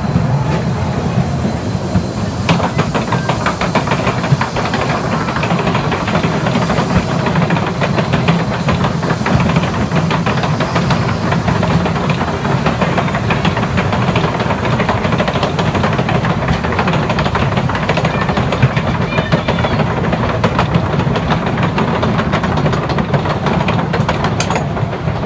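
Wooden roller coaster train running on its track: a steady rumble with rapid, continuous clacking of the wheels over the rails.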